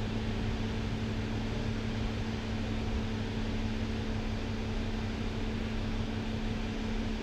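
Toyota Avalon V6 idling roughly, a steady hum with an uneven low pulsing under it: the engine has a misfire on cylinder 2, shaking it enough to be felt in the steering wheel. Heard from inside the car.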